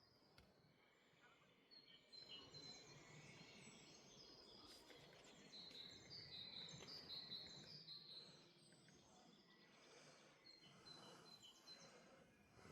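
Faint birdsong: several small birds chirping and whistling in short high phrases over a soft background hiss, busiest through the middle.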